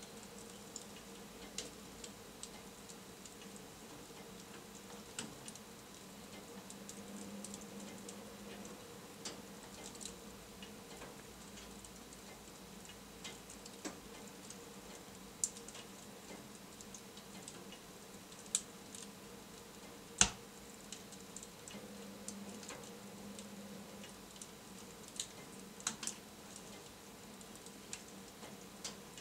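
Wood fire crackling in a fireplace: irregular sharp pops and snaps over a low, steady background, with one louder pop about two-thirds of the way through.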